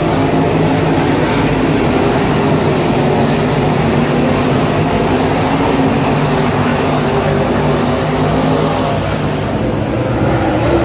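Dirt super late model race cars' V8 engines running hard around the track: a loud, steady drone from the field, easing slightly near the end.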